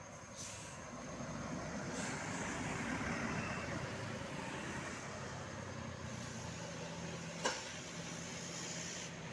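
A motor vehicle going by on the road: its noise swells over the first few seconds and then settles to a steady run with a low hum. A sharp click comes about seven and a half seconds in, and there is no horn.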